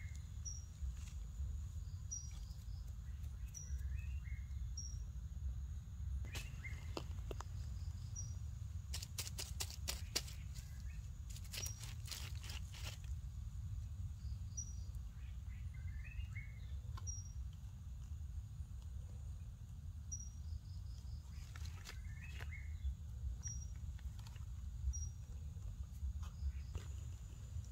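Outdoor ambience: a steady low rumble, with a short high chirp repeating about once a second and a run of sharp clicks near the middle.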